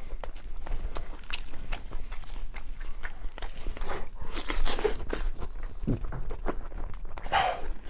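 A person chewing and biting food close to the microphone, with irregular crunches and wet mouth sounds.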